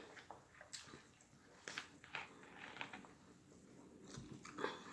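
A person chewing a mouthful of burger close to the microphone: faint wet mouth clicks and smacks, a handful of them spread out irregularly.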